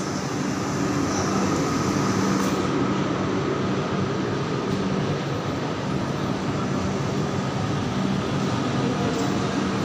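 Passenger train of LHB coaches rolling past a platform: a steady rumble of wheels on rail with a constant low hum.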